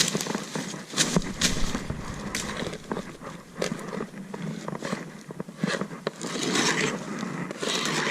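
Irregular knocks and scrapes of a wooden beehive's frames and boxes being handled while dead bees are cleared out of a dead colony, with longer scraping stretches late on.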